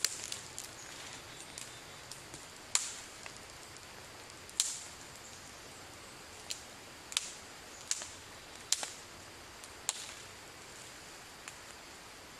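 Light rain falling steadily, broken by sharp, short ticks at uneven intervals, about eight in all.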